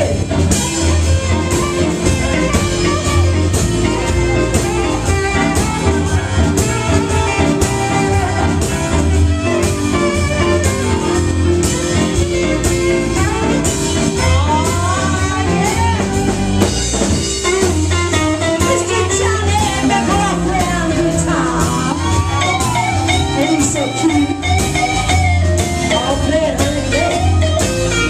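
Live blues band playing with a steady drum beat, bass, guitar and keyboard, under a saxophone solo whose bending, wavering lead line is clearest in the second half.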